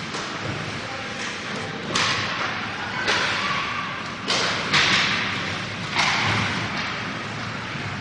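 Ice hockey play echoing around the rink: about five sharp knocks and scrapes of puck, sticks and skates against the ice and boards, one after another.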